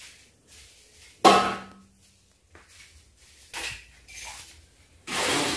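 A sharp clank of kitchenware on a tiled counter about a second in, ringing briefly, followed by a few softer knocks and a cloth rubbing as the counter is wiped.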